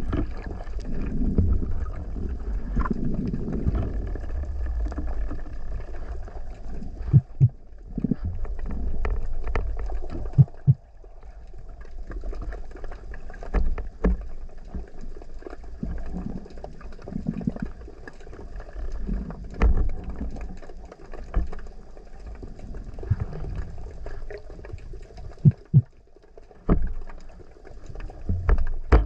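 Water movement around a spearfisher's camera: a low muffled rumble of moving water, louder in the first ten seconds, with scattered sharp clicks and knocks.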